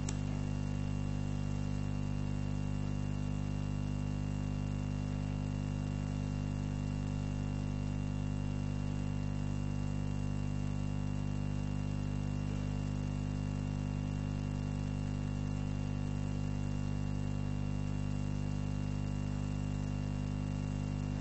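Steady low electrical hum with an even hiss and a faint high steady tone, unchanging in level.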